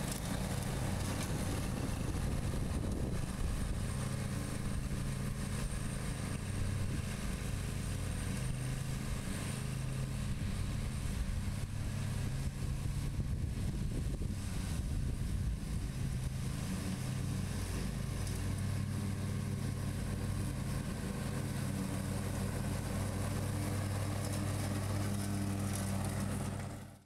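John Deere Z235 zero-turn mower's 20-horsepower engine running steadily at mowing speed, with the deck blades cutting grass. The sound cuts off suddenly at the very end.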